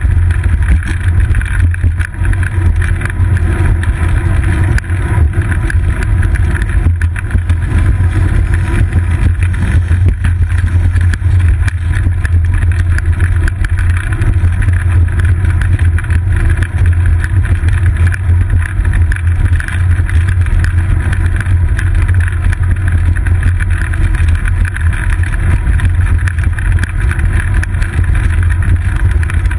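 Steady low rumble of wind buffeting and road vibration picked up by a GoPro camera mounted on the seat post of a moving bicycle.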